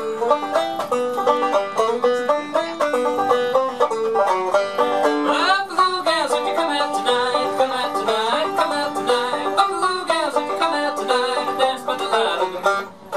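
Banjo played live, a quick run of picked notes in a bluegrass-style tune.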